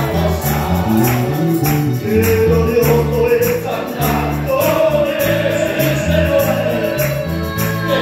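Congregation singing a hymn together to a band of strummed guitars and mandolins over a walking bass line, with a tambourine-like jingle keeping a steady beat.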